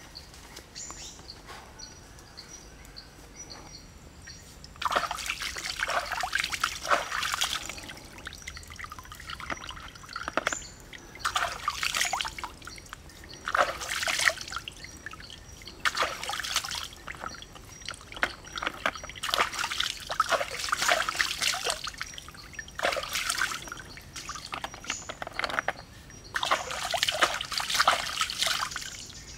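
River water splashed and poured by hand over a bamboo basket of freshwater snails to wash them: repeated splashes and trickles, each a second or two long with short pauses between. The first few seconds hold only quieter water and a faint, thin high chirp.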